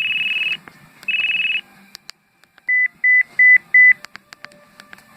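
LG 237C mobile phone sounding a high, rapidly pulsing tone that cuts off about half a second in and sounds again briefly around a second in. Then come faint clicks and four short, even beeps, about three a second.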